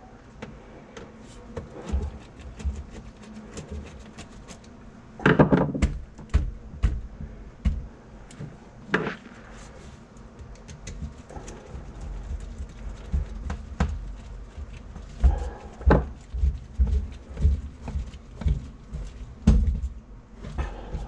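Irregular knocks, clunks and rattles of hands at work with tools and drain parts, with a louder clatter about five seconds in.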